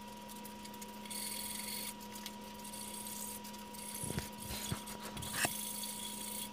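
Hand file rasping across the edge of a mahogany workpiece held in a vise, in several slow strokes with a few light knocks of the file a little past halfway, over a steady faint hum.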